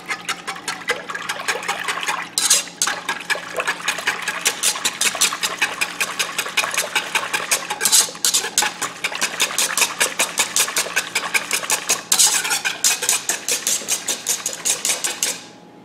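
Wire whisk beating milk, egg and seasonings in a pot: a rapid, even clicking of the wires against the pot and sloshing liquid, several strokes a second, louder in a few stretches. It stops shortly before the end.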